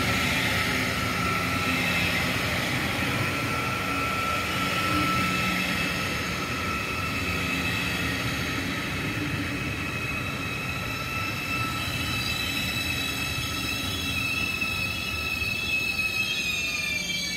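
ICE high-speed train rolling along the platform with its brakes squealing in high steady tones over the rumble of its wheels. The squeal falls in pitch near the end as the train slows.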